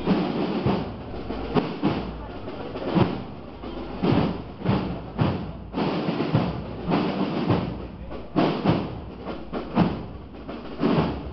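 A run of irregular dull thumps and knocks, roughly one or two a second, over a low rumble.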